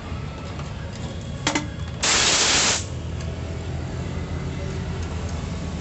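A short, loud hissing blast of spray lasting under a second, about two seconds in, just after a light clink. A steady low hum runs underneath.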